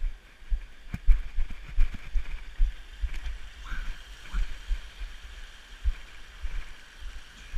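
A small mountain stream trickling and gurgling over rocks as a steady rush, with irregular low thumps throughout.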